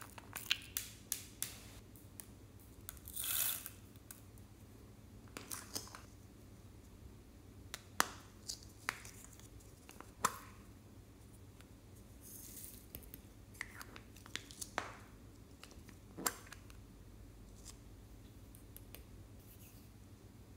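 Hollow plastic toy capsules being pried open, giving sharp plastic clicks now and then, with a few short rustles as glitter and small beads are shaken out of them.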